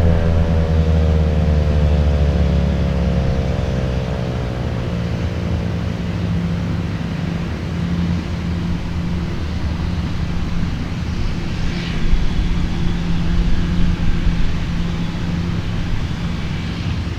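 ASC T-128 outdoor warning siren winding down at the end of its test signal, its tones falling steadily in pitch and fading out over several seconds. A steady low rumble runs underneath.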